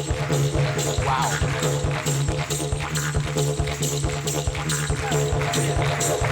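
Didgeridoo played as a dance groove: a low steady drone broken into quick, rhythmic percussive pulses, with a fast driving beat over it.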